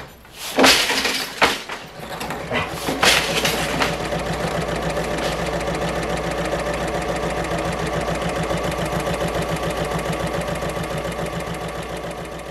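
A few sharp wooden knocks of a floor loom's beater packing in the weft, then an electric sewing machine stitching steadily with a rapid even rhythm, fading out near the end.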